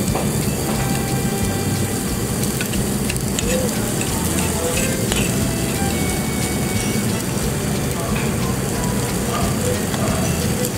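Rice sizzling in a hot stone bowl as a metal spoon stirs it, with small clinks and scrapes of the spoon against the stone.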